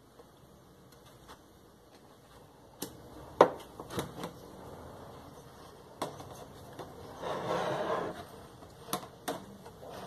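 Hard plastic washing-machine agitator being handled and set upright on a table: a few sharp knocks and clicks, the loudest about three and a half seconds in, and a brief scraping rub just before the eight-second mark.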